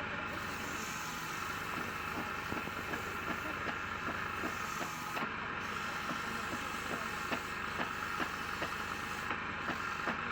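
Wood lathe running steadily with a hiss, with light ticks recurring a few times a second that come more often in the second half.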